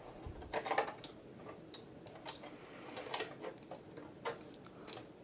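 Faint, irregular clicks and taps as a rubber toothed timing belt is pushed by hand into a plastic motor plate and its pulleys.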